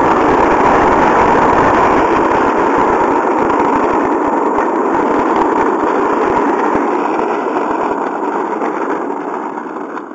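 Small hard wheels of a homemade scooter cart rolling fast over rough asphalt while it is towed, a loud, steady rumbling roar that fades over the last couple of seconds as the cart slows.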